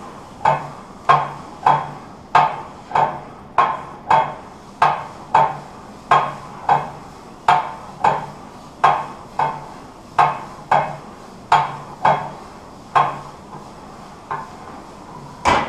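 Plate-loaded 45-degree leg press sled and its weight plates clanking with each movement of the sled, a metallic knock about every two-thirds of a second that spaces out toward the end. A louder clank comes near the end.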